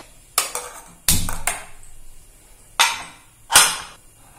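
Five sharp metal clicks and knocks from handling a pressure cooker: the lid is closed and the whistle weight is set on the steam vent.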